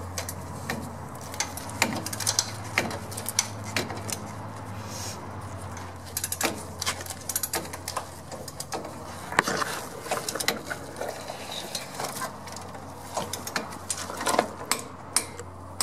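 Ratchet wrench clicking and metal tools clinking in irregular bursts as the ball-joint castle nut of a front lower control arm is tightened and torqued, over a low steady hum.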